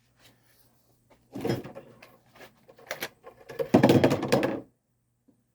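A chainsaw's loose plastic top cover being lifted off and handled: a few scrapes and knocks, the loudest a longer scraping rattle near the end.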